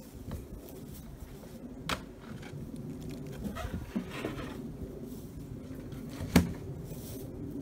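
The roof of a wooden beehive being lifted off and handled: light knocks and scrapes of wood and metal, then one sharp knock about six seconds in.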